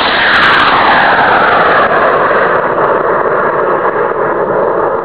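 Aerotech J500 green-propellant high-power rocket motor burning as the rocket climbs away from the pad: a loud, continuous rushing noise with a few sharp crackles about half a second in, and a tone within it that slides steadily downward as the rocket rises.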